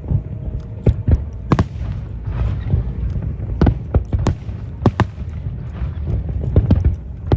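Fireworks exploding in a display: many sharp, irregular bangs over a continuous deep rumble of launches and bursts.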